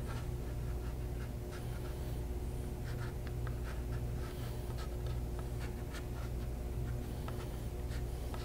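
Razor blade scratching and dragging across paint on illustration board, heard as scattered short scratches, over a steady low hum.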